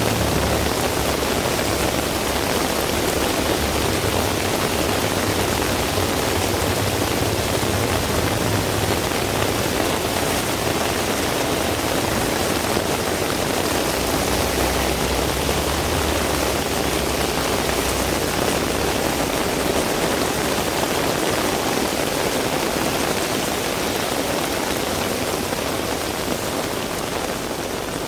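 Heavy rain falling steadily in a dense, even hiss, with a low rumble underneath for most of the time; the whole sound begins to fade out near the end.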